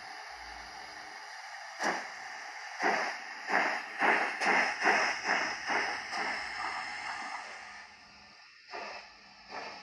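A sound-fitted OO gauge model steam tank locomotive plays a steady steam hiss, then exhaust chuffs from about two seconds in that quicken as the engine pulls away. The chuffs fade after about seven seconds, and a few more come near the end.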